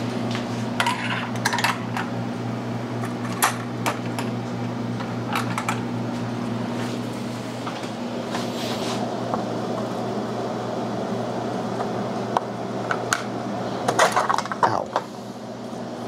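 Scattered clinks, taps and scrapes of metal hand tools as a screwdriver is used to pry the plastic float bowl off a Briggs & Stratton lawnmower carburetor, busiest near the end, over a steady low hum.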